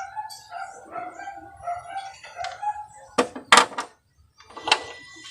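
A rooster crowing in the background, a drawn-out wavering call. It is followed by a few loud, sharp metal clacks, the loudest sounds here.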